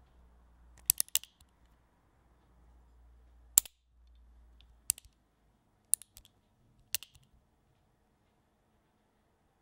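A series of sharp metallic clicks and snaps about a second apart, with a quick cluster of three about a second in. These are firearm mechanism sounds, an action being worked and a trigger released, recorded close and clean.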